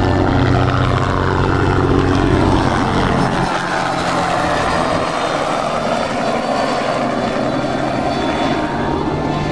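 Propeller-driven aerobatic airplane in flight, its engine and propeller drone sliding down in pitch over the first few seconds, then rising again near the end as the plane manoeuvres.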